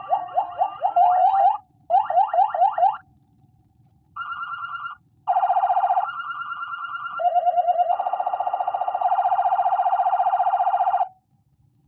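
Senken 60-watt siren module playing electronic siren patterns fed in over aux: bursts of fast rising yelps, a short warble, held tones that step in pitch, then a rapid pulsing tone that cuts off about a second before the end.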